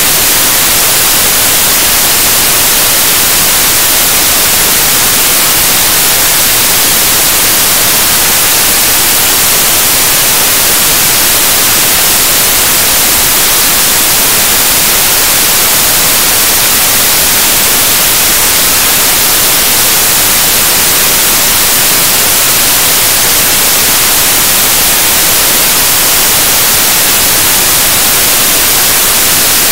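Loud, steady static hiss like white noise, brightest in the treble and unchanging throughout, with no speech heard.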